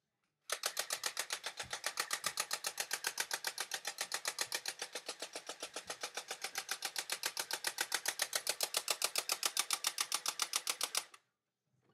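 A fast, perfectly even rattle of sharp clicks, about ten a second, which starts abruptly about half a second in and cuts off abruptly near the end, with a few dull thumps underneath.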